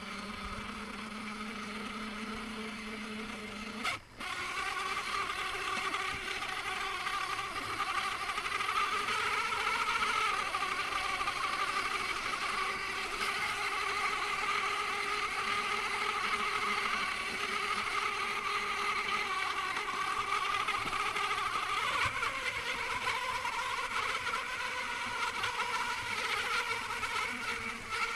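Whine of an Axial Capra RC rock crawler's electric motor and geartrain, running steadily while driving over rock, with the pitch drifting slightly as its speed changes. About four seconds in there is a brief break and a click.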